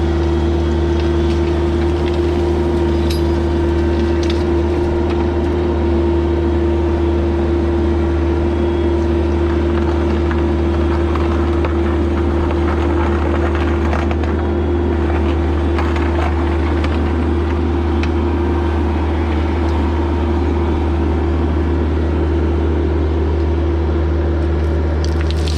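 Bobcat E26 mini excavator's diesel engine running at a steady, constant speed, with faint scattered clicks and knocks over the hum.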